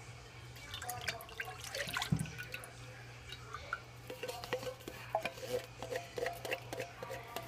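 Coconut milk pouring and dripping from a can into a slow cooker crock, then a silicone spatula scraping the inside of the upturned can in a series of light scrapes and clicks.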